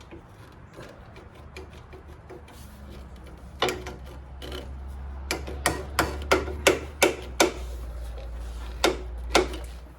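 Sharp metal clicks and clinks from hand tools and loose bolts being handled, about a dozen in irregular succession, most in the second half, over a low steady hum.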